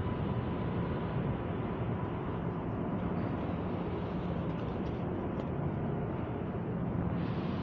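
Subway train running at the station, a steady low rumble without pause.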